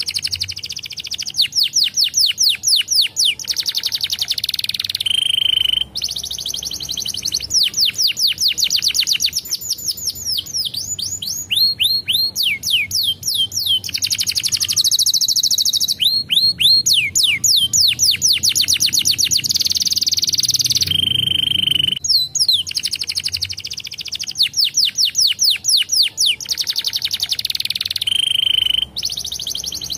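Domestic canary singing a long, continuous song of rapid trills: runs of fast, repeated sweeping notes lasting a second or two each, with buzzy rolls and a few short, steady whistled notes between them.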